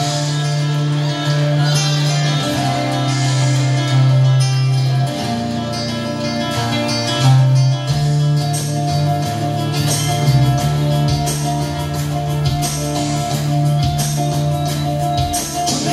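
Music played back from cassette tape on a Marantz SD 820 DBX three-head deck. It is a guitar-led piece with light percussion and runs steadily.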